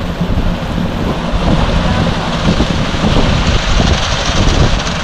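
Concrete mixer truck running with its drum turning to discharge, a steady low hum, while wet concrete slides down the chute and pours into a hopper with a continuous rushing hiss.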